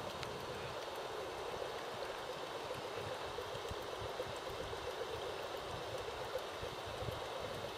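Steady rush of flowing water, an even hiss with no breaks.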